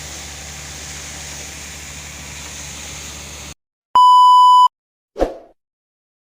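Steady rushing noise with a low hum from the air compressor blowing out a deep well, cut off suddenly about three and a half seconds in. Then a loud, single electronic beep lasting under a second, followed by a short whoosh.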